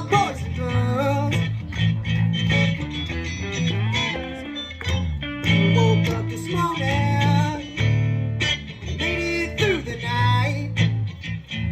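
A live band playing: lead notes that bend and slide in pitch over a pulsing bass line.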